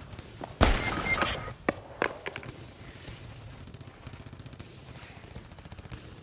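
Gunfire sound effects: a loud burst of shots lasting about a second, starting about half a second in, followed by several sharp single shots that thin out.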